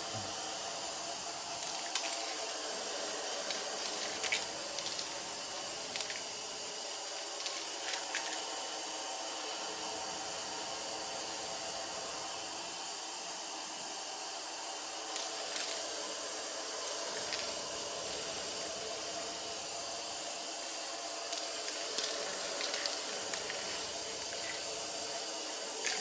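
Steady hiss of silver paint being sprayed onto primed rear brake parts as a first coat, with a few faint clicks and taps along the way.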